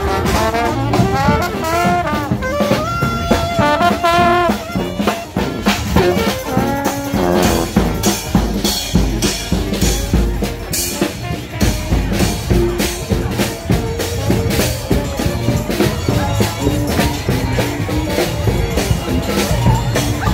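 Brass band music in a jazz style: trumpet and trombone lines over steady drums.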